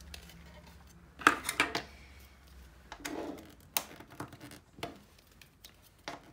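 Hard plastic pen-stand parts clicking and knocking against each other as the pieces are pushed into place to fit the base. There is a quick cluster of sharp clicks about a second in, followed by scattered single knocks.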